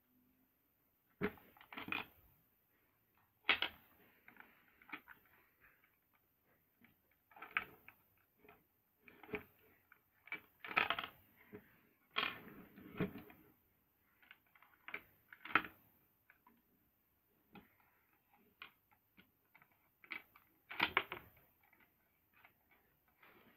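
Irregular clicks, knocks and short rattles from a hand-worked Lego-brick candy dispenser: plastic bricks snapping and sliding as wrapped Starburst candies are pushed out onto a wooden board.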